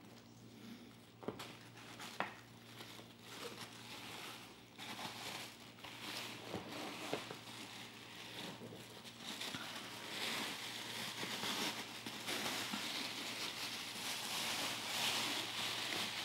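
Thin plastic bag crinkling and rustling as a helmet is drawn out of its cloth bag and unwrapped, growing louder over the second half. A couple of sharp taps about a second and two seconds in.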